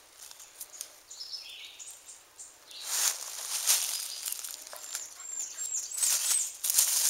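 Rustling and crunching of dry fallen leaves in short bursts, loudest about three seconds in and again near the end, with a few faint high bird chirps in the background.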